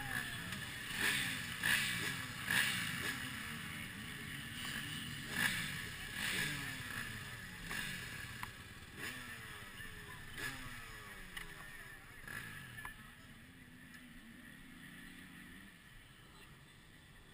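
Dirt bike engines revving hard and changing up through the gears, each gear change a falling sweep in pitch about once a second. The engines fade steadily into the distance.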